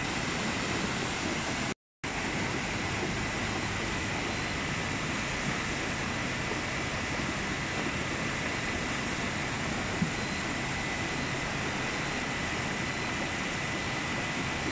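Fast brown floodwater of the swollen Xibi Xibi river rushing along its channel, a steady even rush of churning water. The sound cuts out for a moment about two seconds in.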